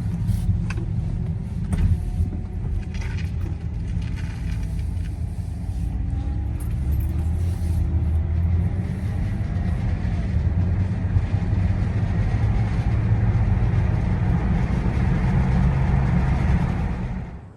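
2011 BMW 328i inline-six driving at low speed, with engine and road rumble and a rattle from the engine bay. The rattle comes from the DISA intake valve, whose flap has broken loose from its shaft and flaps around.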